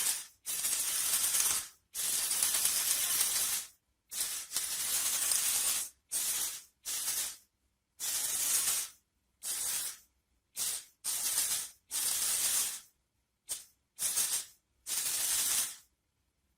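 Repeated bursts of high-pitched hissing, rustling noise, about a dozen of them lasting from a fraction of a second to two seconds, each starting and stopping abruptly with silence between.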